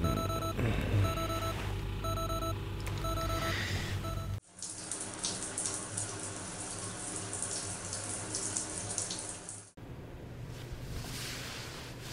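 Digital alarm clock beeping in a steady repeating pattern, stopping after about four seconds. A shower then sprays hard for about five seconds, and is followed by quieter water running from a tap.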